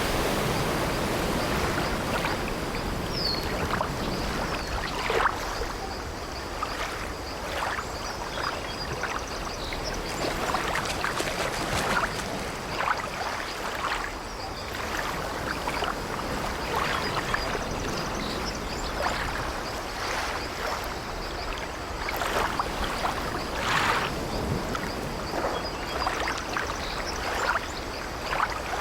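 Sea water washing and sloshing steadily around an old wooden sailing ship, with many short splashes and laps throughout and a brief high creak about three seconds in.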